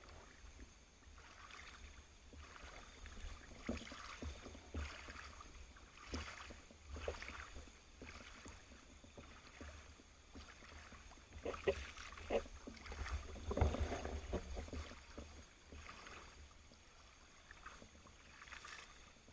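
Faint underwater noise on a camera in the water during a dive: a steady low rumble with irregular swishes and crackles of moving water, louder for a few seconds a little past halfway.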